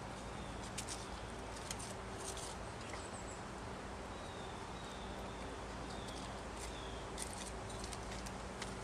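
Yard ambience: a faint steady hum under scattered sharp ticks, with a bird's short, faint falling calls repeating about once a second through the middle.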